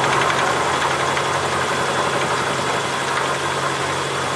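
Milling machine cutting a slot in a metal block with a half-inch four-flute carbide end mill, taking fifty thousandths per pass: a steady cutting noise over a low, even hum.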